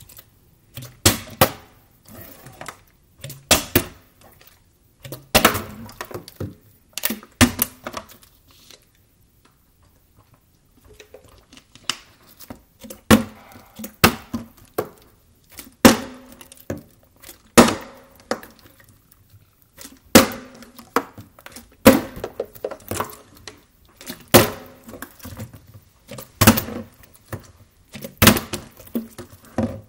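Plastic water bottles being flipped and landing on a granite countertop: repeated sharp thuds and clatters every second or two as the bottles hit the stone and sometimes tip over, with a quiet pause of about two seconds around a third of the way in.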